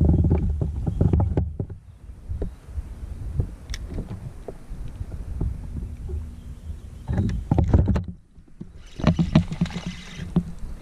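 Knocks, bumps and rustling of a kayak angler's hands, rod and gear against the kayak, with scattered clicks in between. From about nine seconds in the noise grows busier and louder as the rod bends into a hooked fish.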